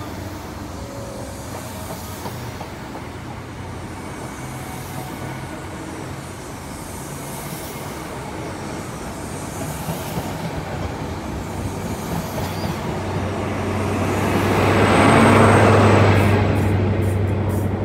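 High Speed Train departing: Mark 3 coaches rolling past with a steady rumble of wheels on rail, then the rear Class 43 diesel power car passing about 15 s in, loudest here with a deep engine hum, before it fades away.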